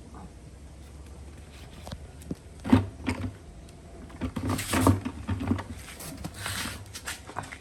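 Quiet for about two and a half seconds, then a sharp knock followed by a run of irregular knocks, bumps and scraping handling noises.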